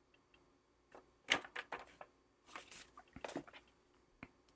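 Faint handling of the paper insert from a power bank's box, the user manual and a small card: a scattering of short clicks, taps and brushes of paper and cardboard.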